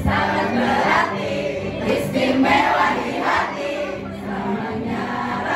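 A large group of voices singing together in chorus over music.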